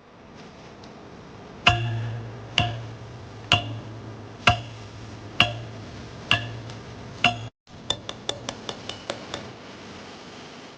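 Background music with a woodblock-like click beat about once a second over a held low bass note, then a quick run of clicks after a brief cut-out.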